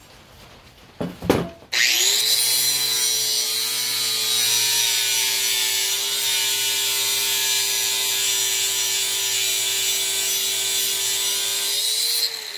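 Angle grinder with a 36-grit flap disc grinding metal off the heavy end of a steel lawn mower blade to balance it. After a couple of handling knocks, it runs as a steady motor whine over a hissing grind, then winds down near the end.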